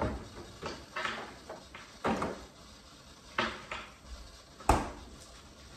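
Kitchen clatter: a series of sharp knocks and clicks, about seven in all, the loudest about four and a half seconds in.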